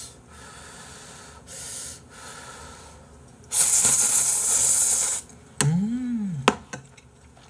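Ramen noodles slurped in one long, loud slurp lasting over a second and a half, about three and a half seconds in, after a few softer breathy puffs. A hummed "mm" of relish follows, rising and falling in pitch, with a small click after it.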